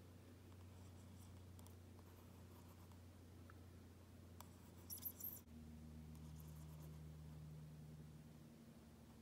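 Faint scratching of a pen tip inking short lines on an index card, with a brief louder scratch about five seconds in, over a low steady hum.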